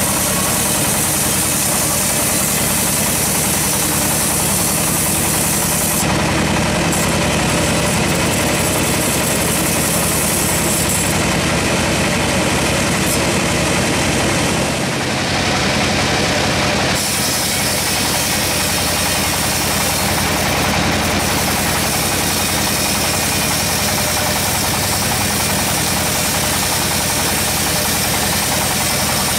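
Sawmill bandsaw running loudly and steadily as its blade saws through a teak log, a continuous mechanical drone with a steady hum.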